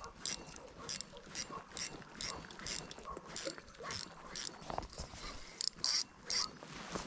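A spinning reel being cranked to retrieve a lure: a run of uneven clicks, two or three a second.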